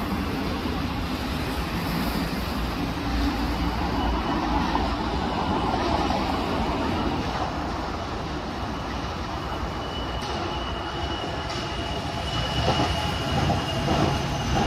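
Wuppertal Schwebebahn suspension railway car running on its overhead steel rail. A steady rumble grows louder as the car nears and passes overhead near the end, with a thin, high wheel squeal.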